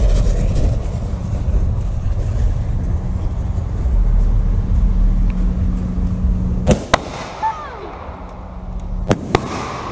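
Consumer firework lit on the ground: a steady low rumble while the fuse burns, then a sharp bang about seven seconds in followed by faint whistling, and two more quick sharp bangs about two seconds later.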